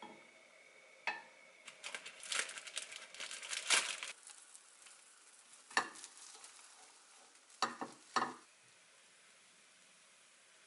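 Butter sizzling in a frying pan, with a couple of seconds of dense crackling as a slice of white bread is laid into it. A few sharp clicks and taps follow.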